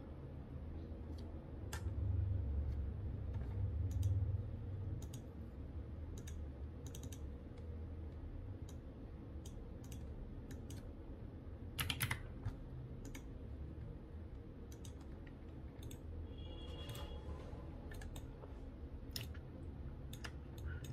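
Scattered computer keyboard key presses and mouse clicks over a low steady hum, with a louder cluster of clicks about twelve seconds in.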